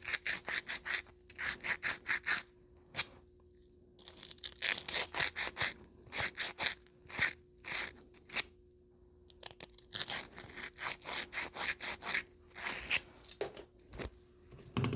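Rolled-up sandpaper scrubbing back and forth inside a copper pipe tee fitting to clean off corrosion before soldering: quick rasping strokes, several a second, in three runs with brief pauses between.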